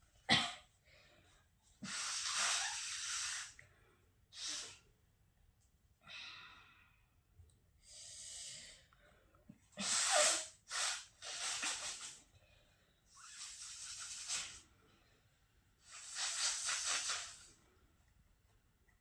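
A person forcefully blowing their nose over and over. There are about six long noisy blows lasting a second or more, with shorter sharp bursts between them. The loudest comes about ten seconds in.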